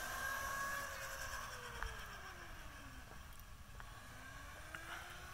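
Faint whine of a 1600-watt, 48-volt Uberscoot electric scooter's motor as it rides away. Its pitch sinks and then climbs again about halfway through, over a low background rumble.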